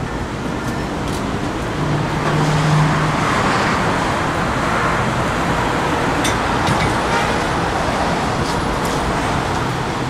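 Road traffic noise on a city street: a steady rush of passing cars that swells about two seconds in and stays loud, with a few faint clicks later on.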